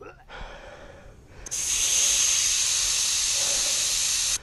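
Air hissing steadily out of the valve of a Nimbus Oracle mountain unicycle's tyre as the pressure is let down. It starts about a second and a half in and cuts off suddenly.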